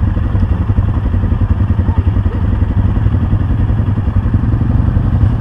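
Off-road vehicle engine running steadily close by: a low rumble with a fast, even pulsing beat.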